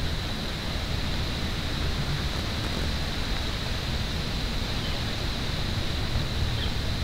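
Steady rushing wind noise, with an uneven low rumble of wind on the microphone and a faint steady high whine.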